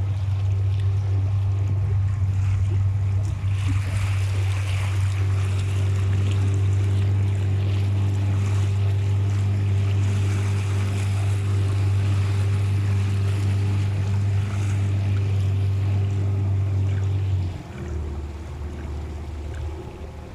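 Boat motor running at a steady pitch under a rushing hiss of water and wind; about three seconds before the end it throttles back to a lower, rougher note.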